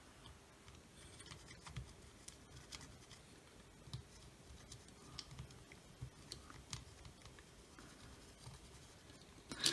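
Faint small ticks and scratches of a soldering iron tip and solder wire working on a pad of a drill's brushless motor control board while solder is added, with a sharper click near the end.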